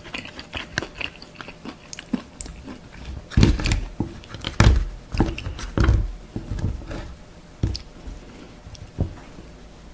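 Close-miked chewing and crunching of Korean fried snacks. A run of louder crunchy bites comes about three to six seconds in, then sparser clicks.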